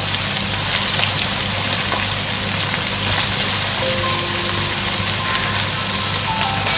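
Raw boneless chicken pieces sizzling in hot oil and browned onion paste in a nonstick wok: a steady, dense fizz with scattered small crackles.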